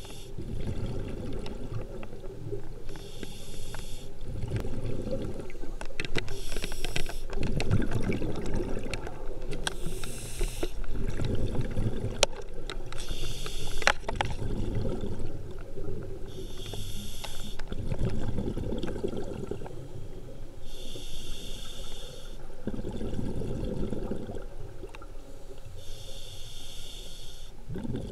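Scuba diver breathing through a demand regulator underwater: a short hissing inhalation about every three to four seconds, each followed by a low bubbling rumble of exhaled air.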